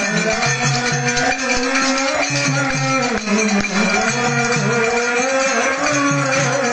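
Devotional kirtan: a harmonium playing a sustained melody over a steady beat of hand percussion, with voices singing the chant.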